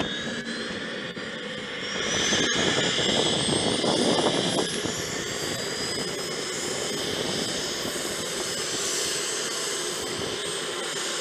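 Jet engine spooling up: a whine that climbs steadily in pitch over several seconds, with a louder rush about two to four seconds in, then settling into a steady high whine over a rushing roar.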